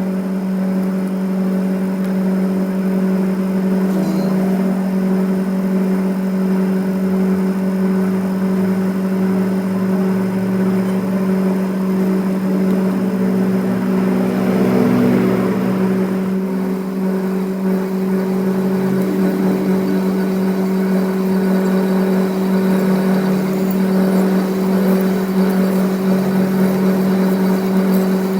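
A workshop machine's motor running steadily, giving one unbroken low hum.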